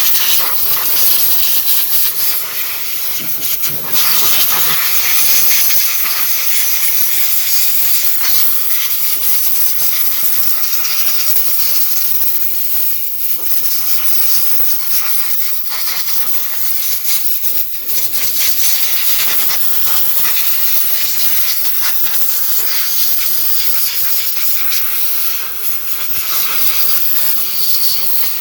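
Compressed air blasting from an air-hose nozzle, blowing excess WD-40 off an RC monster truck: a loud, continuous hiss that dips briefly a few times as the trigger eases or the nozzle moves.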